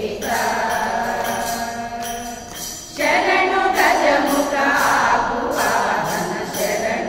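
Women's bhajan group singing a Dasara keertane: one voice carries a held line, then the whole group comes in louder about three seconds in. A metallic jingling keeps time, about two strokes a second.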